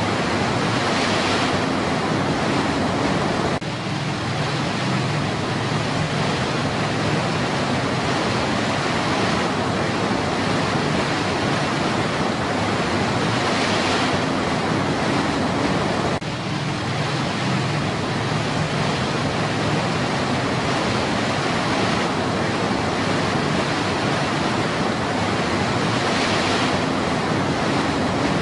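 River rapids rushing over rocks, a steady dense roar of white water with two brief dips in level.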